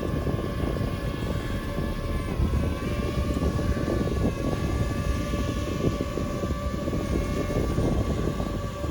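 DJI FPV drone's propellers whining steadily as it hovers in to land, the pitch dipping briefly about two and a half seconds in, over a steady low rumble.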